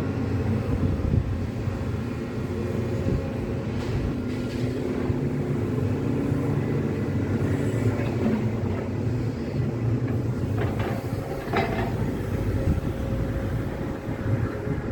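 Heavy demolition excavator's diesel engine running steadily under load, with rubble scraping and knocking, and a few sharper clatters around ten to twelve seconds in.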